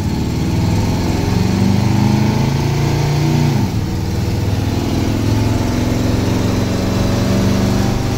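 Ford 302 V8 in a 1971 F100 pickup accelerating, heard from inside the cab: the engine note climbs, drops sharply as the transmission shifts up about three and a half seconds in, then climbs again.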